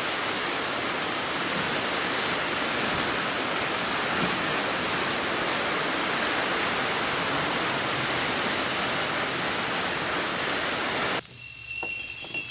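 Steady rain, an even hiss, that cuts off suddenly about eleven seconds in.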